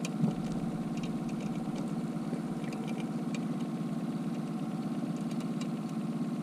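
Boat's outboard motor idling steadily at trolling speed, with a single thump about a quarter second in and a few light scattered clicks.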